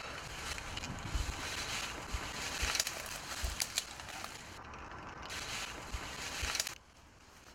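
Footsteps crunching and rustling through dry leaf litter and undergrowth, with sharp cracks here and there. The noise drops away suddenly near the end.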